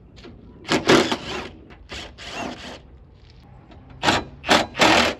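2003 Honda CR-V's plastic front bumper cover creaking and scraping as it is pulled back from the headlight, in about five rough bursts, the loudest about a second in.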